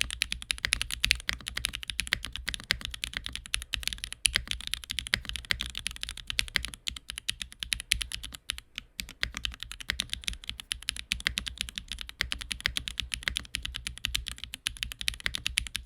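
Fast continuous typing on a top-mounted Qwertykeys QK65v2 mechanical keyboard with Gateron CM switches on a POM plate and GMK keycaps: a dense run of sharp, clacky keystrokes with a very firm, solid feel, the spacebar and modifiers mixed in. The clack is the aim of this loud build.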